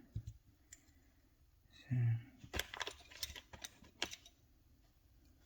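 Light clicks and taps of a key fob's plastic shell and circuit board being handled and set down, with a cluster of sharp clicks from about halfway through.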